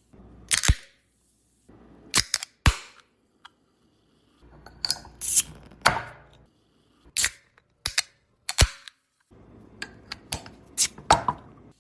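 Carbonated drink containers being opened one after another, about six times at intervals of a second or two. Each opening is a sharp crack of the seal followed by a short hiss of escaping gas.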